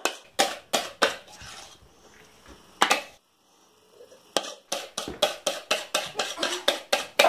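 A spoon clinking against a bowl and plate as yoghurt-tahini sauce is dolloped out: a few knocks, a pause about three seconds in, then a quick run of about four knocks a second.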